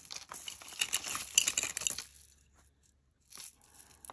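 Plastic crinkling and rustling as jewelry is handled, with a few light clicks, for about two seconds. Then a short pause and a brief rustle near the end.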